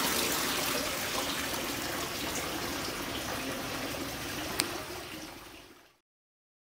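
Water pouring and trickling from the buckets of a Persian wheel into its trough, a steady wash that slowly weakens and fades out about six seconds in. A single short click sounds shortly before the fade.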